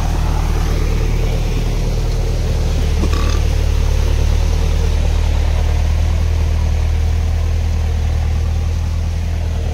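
Farm tractor's diesel engine running steadily under load in deep mud, pulling a rotavator.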